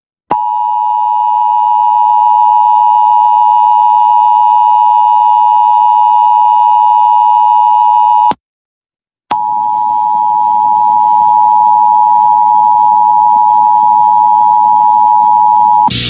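Emergency Alert System two-tone attention signal: a loud, steady electronic tone sounded twice, first for about eight seconds, then after a one-second break for about seven more. It signals that an emergency message follows, here a severe thunderstorm warning.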